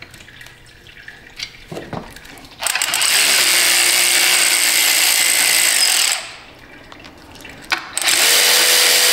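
Cordless electric ratchet spinning out the bolts on a hydraulic tank cover. It makes two steady motor whines: one about three and a half seconds long starting a little over two and a half seconds in, and a shorter one near the end. Small handling clicks come before them.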